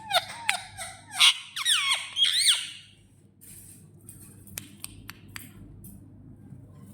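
Pet parrot giving a rapid run of squawks and sliding, whistle-like calls for about three seconds, then falling quieter with only a few short clicks.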